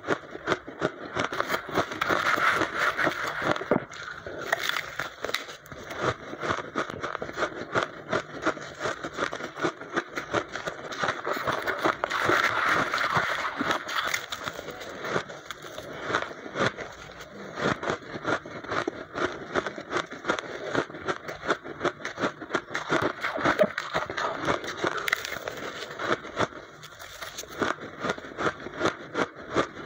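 Fast crunching of blended pink ice being chewed: a dense stream of crisp crackles, many to the second. A spoon scoops and scrapes through the loose crushed ice in a plastic blender jar.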